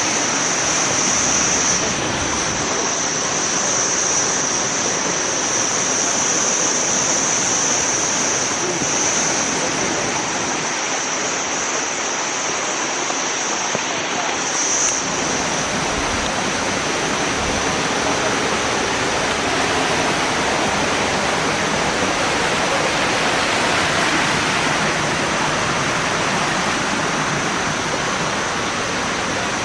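Waterfall rushing: a loud, steady, even wash of falling water. A thin, steady high whine sits above it for about the first half and then stops.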